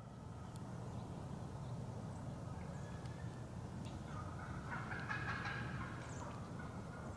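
Faint woodland ambience: a steady low rumble, with a rattling bird call from about four to six seconds in and a few faint clicks.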